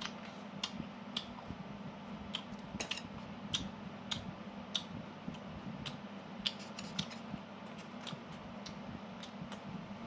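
Close-up eating sounds of a roasted chicken thigh being chewed and bitten, with irregular sharp clicks and smacks a few times a second over a steady low hum.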